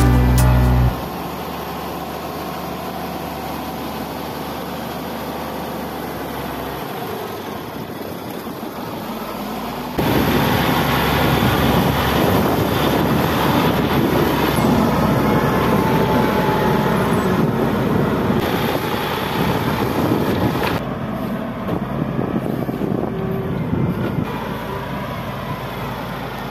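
Wheel loader diesel engines running under load, a steady heavy engine noise that gets markedly louder about ten seconds in.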